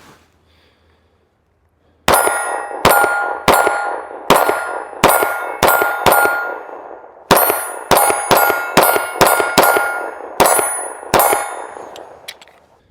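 CZ P10C ported pistol fired in two quick strings of about seven and eight shots, each hit setting a steel target ringing with a clear metallic ring that fades between shots. A short pause falls about halfway.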